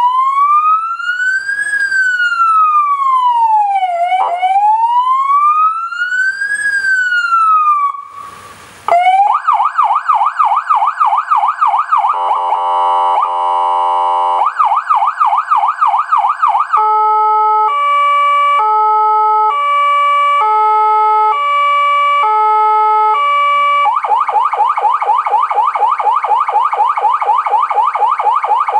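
Electronic siren of a Toyota Tundra fire-brigade light vehicle cycling through its tones. It runs a slow wail that rises and falls about every two and a half seconds, then a short burst of noise and a fast yelp, a brief harsher pulsing tone, and more yelp. After that comes a two-tone hi-lo alternating roughly every 0.7 seconds, and last a very fast warble.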